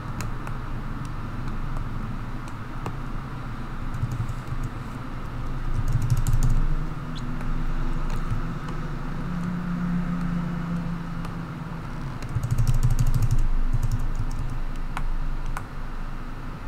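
Computer keyboard and mouse clicks, in quick runs about six seconds in and again around twelve to thirteen seconds, with scattered single clicks between, over a steady low rumble.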